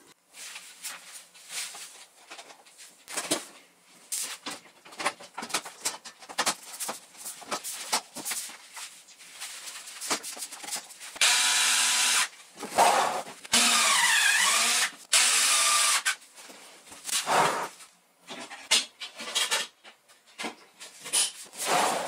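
Dishwasher reassembly handling noise: scattered clicks, knocks and rubbing as the sheet-metal side panel is handled and fitted, with a few seconds of louder scraping about halfway through.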